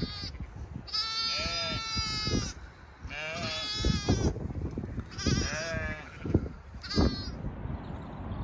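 A lamb bleating: four wavering, high calls, the longest lasting about a second and a half and the last one short.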